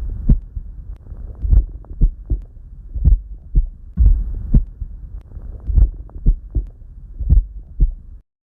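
Heart sounds heard through a stethoscope: a steady rhythm of low, dull beats over a soft background rumble. The recording cuts off suddenly near the end.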